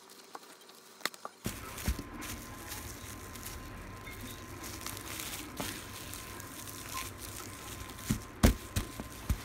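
Plastic cling wrap crinkling and rustling as hands roll a wrapped log on a wooden table. A few sharp knocks near the end.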